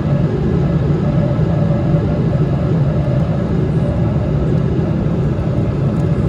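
Steady rumble of a Boeing 777-300ER jetliner in flight, engine and airflow noise with a faint steady tone above it.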